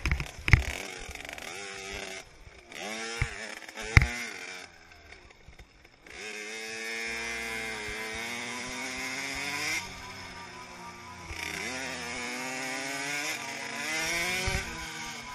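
Small 50cc two-stroke youth motocross bike engine racing, revving up in repeated rising sweeps as it accelerates, easing off briefly about five seconds in. Sharp knocks about half a second and four seconds in, as the bike hits bumps on the dirt track.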